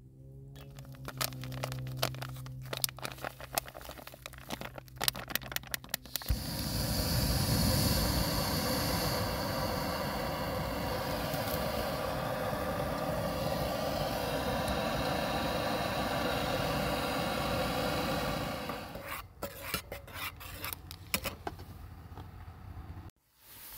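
Water poured from a plastic bottle into a stainless steel pot, its pitch rising as the pot fills. A loud steady rushing hiss follows for about twelve seconds, and near the end a metal spoon clinks and scrapes in a mug.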